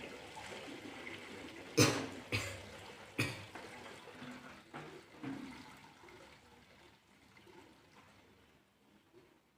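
A person coughing and spitting in wet, sudden bursts. Three sharp ones come about two to three seconds in, followed by a few weaker ones, and the sound trails off toward near silence near the end.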